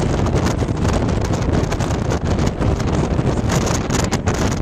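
Wind buffeting the camcorder's microphone in a continuous loud rumble, from riding in the open bed of a moving pickup truck.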